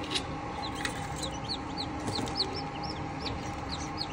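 Newly hatched Golden Misri chicks peeping: many short, high chirps, several a second, over a steady hum, with a few light clicks.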